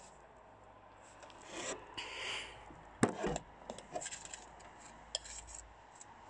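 Metal spoons scraping chocolate batter around a ceramic mixing bowl and tapping on a metal muffin tin, with one sharp knock about three seconds in and a few small clicks after it.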